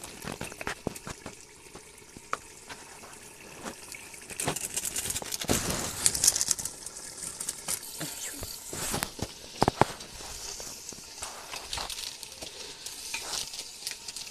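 Chicken curry sizzling in a steaming metal pot while a ladle stirs and scrapes through it, with irregular clicks and scrapes. The spices, meat masala, have just gone in.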